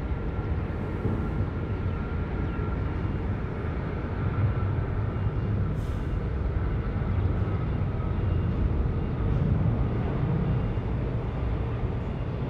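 Boeing 777 jet engines at take-off power, a steady deep rumble with a faint high tone that fades away over the first few seconds.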